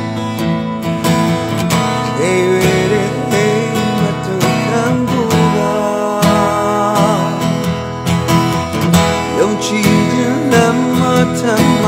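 A song: strummed acoustic guitar backing a singing voice whose melody wavers and glides.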